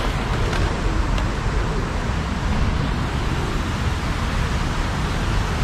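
Steady outdoor rushing noise with a low rumble underneath and no distinct events.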